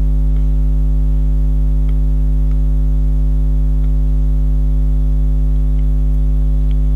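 Loud, steady electrical mains hum: a constant low buzz with its overtones, with a few faint light clicks over it.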